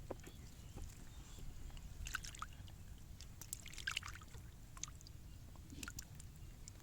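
Faint splashing and sloshing in shallow water, in a few short clusters about two seconds in and around four seconds, over a steady low rumble.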